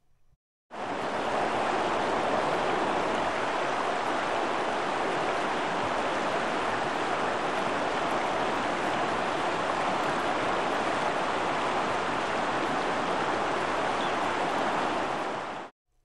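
Steady rushing of flowing creek water, an even hiss with no separate splashes or calls. It comes in abruptly under a second in and cuts off abruptly just before the end.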